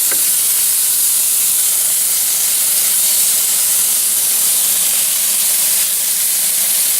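Sliced plums sizzling in hot coconut oil with cinnamon sugar in a frying pan: a loud, steady hiss.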